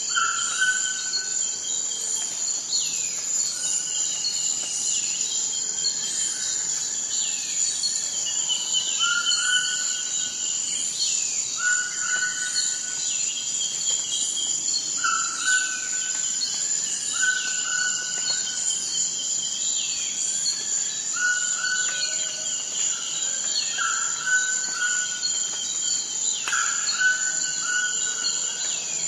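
Tropical rainforest ambience: a steady high-pitched insect drone with a chirp repeating about once a second, and birds calling with short repeated notes over it.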